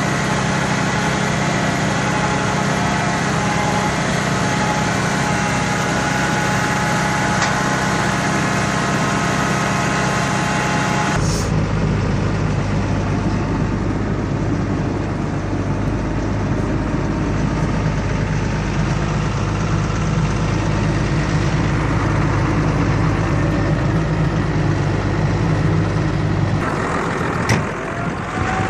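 Engine of farm machinery running steadily at a constant speed. About eleven seconds in the sound changes abruptly to a deeper, lower engine note, and it shifts again near the end.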